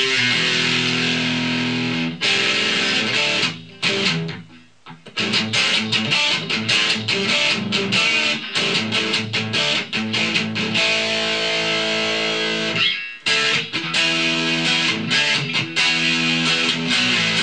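Ibanez S470 electric guitar with DiMarzio pickups, played on the bridge Gravity Storm and Blue Velvet middle pickup combination through an 80s-style distortion setting. It opens on a held chord, nearly stops about four seconds in, then goes into fast picked riffing with a brief break near the end.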